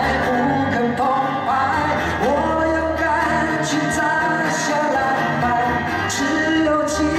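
Live acoustic pop song: two acoustic guitars playing, with a male voice singing long, sliding held notes.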